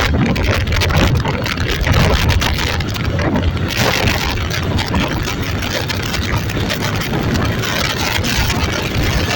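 Steady running noise of a moving vehicle, with wind on the microphone.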